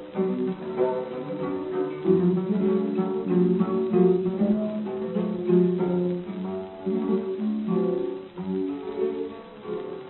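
Guitar music: a plucked melody over chords, the instrumental introduction to a Cuyo folk song, from an old recording with a dull top end.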